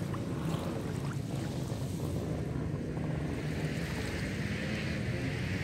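Small waves lapping at the water's edge, with wind on the microphone making a steady low rumble.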